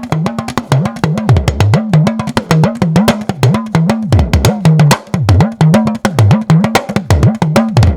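Yoruba talking drum with a calf-skin head played with its curved stick in a fast run of strokes. The pitch of the strokes slides up and down again and again as the drum's strings are squeezed and released. The head has a slight heaviness to its tone, which the player puts down to air trapped under the skin.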